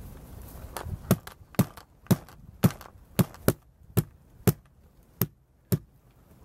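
A scoped bolt-action rifle being knocked down hard again and again: about a dozen sharp thunks, roughly two a second, starting almost a second in. This is an impact test to see whether the scope holds its zero when bumped.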